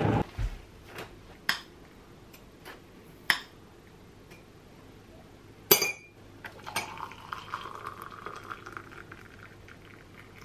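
A spoon clinking in a ceramic mug, several separate clinks with the sharpest about six seconds in. Then hot water from an electric kettle pours into the mug for the last three seconds or so.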